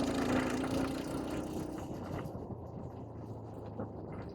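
A motor vehicle's engine running steadily. A higher hum fades out over the first second and a half, and a rushing hiss drops away about two seconds in.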